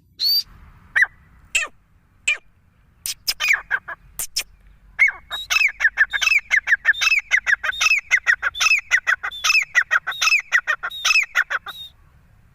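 Female grey francolin calling: a few separate sharp notes at first, then from about five seconds a fast run of short, downward-sliding notes, several a second, with higher notes mixed in. The run stops about a second before the end.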